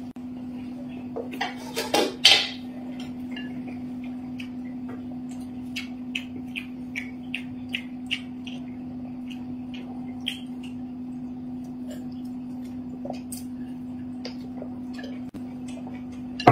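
Chopsticks clicking against porcelain plates and small eating noises at a meal, over a steady low hum, with a louder knock about two seconds in.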